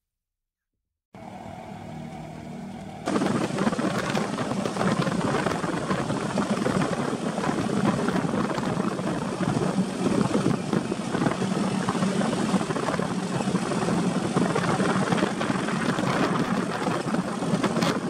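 Open-frame buggy's engine idling, then running much louder and rougher as the buggy drives, with a sudden jump in level about three seconds in.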